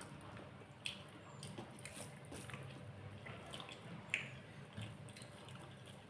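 A person eating rice and curry close to the microphone: wet chewing and squelching with scattered sharp lip-smacks and clicks, the sharpest about four seconds in.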